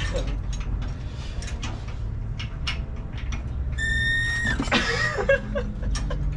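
Hydraulic floor jack being pumped with a person's weight on it: scattered clicks and creaks, and a brief high squeak about four seconds in.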